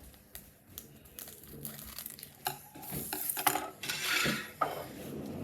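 A foil Pokémon booster pack being handled and opened: crinkling, rustling and small clicks, getting louder and busier about halfway through.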